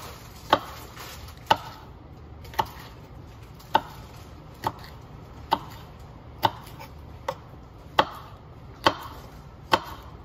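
Kitchen knife chopping sweet pepper on a wooden cutting board: sharp single knocks of the blade hitting the board, about one a second, slow and even.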